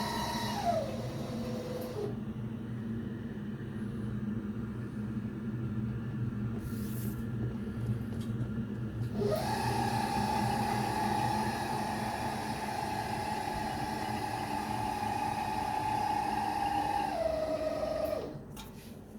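Gas fireplace running: a steady low hum with a machine-like whine over it. The whine drops in pitch about half a second in and stops about two seconds in. It comes back about nine seconds in, holds steady, then steps down in pitch and stops near the end.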